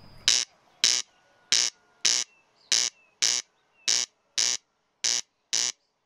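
Corncrake giving its territorial crex-crex call: five double rasps, each pair about half a second apart, repeated about every 1.2 s.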